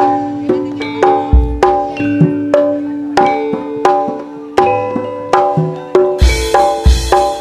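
Javanese gamelan playing campursari: bronze metallophones (saron and demung) and bonang kettle gongs struck in a ringing, even-paced melody over drum beats. About six seconds in, deeper drum hits and a cymbal-like wash come in.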